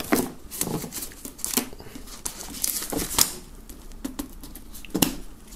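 Plastic shrink-wrap film being torn open and pulled off a box, crinkling and crackling irregularly, with a sharper crackle about five seconds in.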